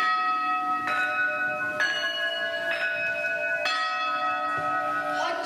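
Bell tones playing a slow melody: five notes of different pitch about a second apart, each ringing on until the next.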